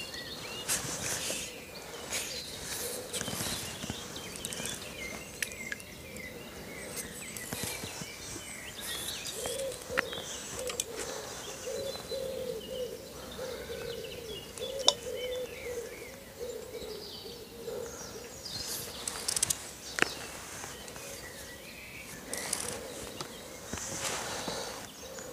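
Several wild birds singing and chirping, with short trills and calls throughout, and now and then a sharp click.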